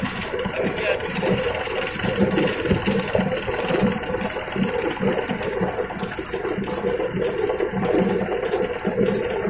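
Belt-driven rag-carding machine running steadily as old cloth is fed in and shredded into stuffing, with a quick regular beat of about three pulses a second.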